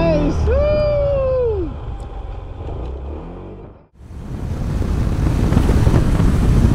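The end of a music intro, with a tone that slides up and back down, fading out to a brief silence about four seconds in. Then steady wind rush on the microphone and the road and engine noise of a Honda ADV150 scooter under way.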